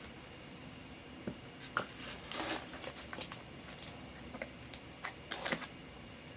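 Plastic vacuum storage bag of dried beans crinkling and rustling as it is handled, with scattered light clicks.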